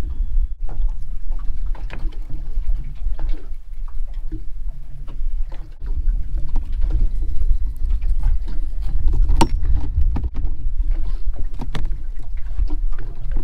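Low, steady rumble of wind and water around a small aluminium boat rocking at anchor. Scattered light clicks and taps run through it as a filleting knife works a school mackerel on a plastic bait board.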